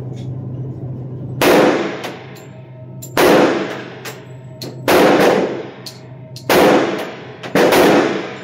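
Five pistol shots, spaced about one and a half to two seconds apart, each with a reverberant tail from the indoor range. A steady low hum runs underneath.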